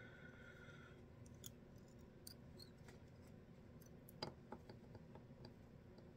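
Near silence: quiet room tone with faint scattered clicks and ticks from fingers handling synthetic hair and tying thread at a fly-tying vise. The sharpest click comes a little past four seconds in.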